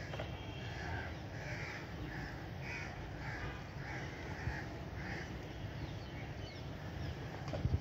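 A crow cawing in a run of about nine harsh caws, roughly two a second, over a steady low background rumble. A short knock comes near the end.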